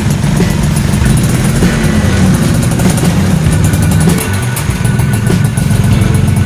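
Suzuki Tornado GS two-stroke motorcycle engine running through an aftermarket racing exhaust, loud and steady, easing off briefly a little after four seconds in.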